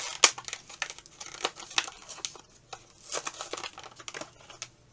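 Plastic packaging crinkling and crackling in irregular sharp clicks as an action figure is handled and unpacked.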